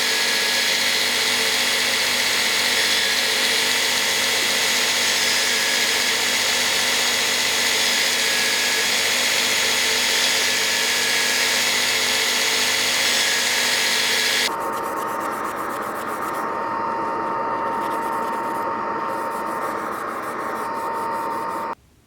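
Electric power tool running steadily under load with a rough, dense noise. About two thirds of the way in, the sound switches abruptly to a slightly quieter run with a clear steady tone. It cuts off suddenly just before the end.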